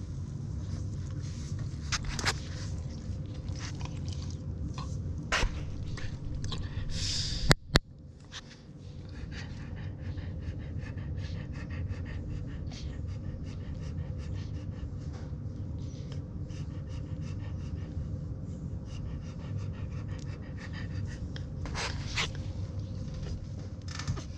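French bulldog dam panting steadily while her newborn puppies nurse, with small clicks and smacks of suckling. There is a sharp knock about seven and a half seconds in.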